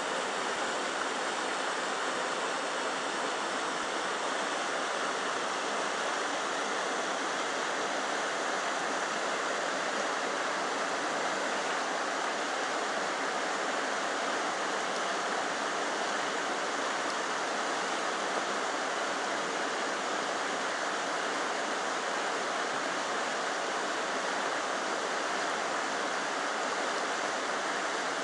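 Merced River flowing: a steady, unbroken rush of water.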